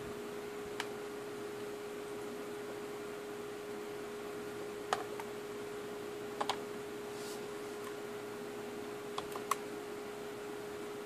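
A handful of scattered single clicks from a laptop's pointing-device buttons, the last few close together, as a right-click menu is opened, over a steady electrical hum.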